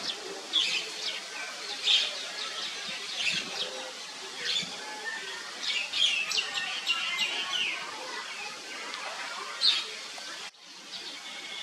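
Short, high-pitched animal chirps and squeaks, many in quick succession, over outdoor ambience; they break off abruptly about ten and a half seconds in.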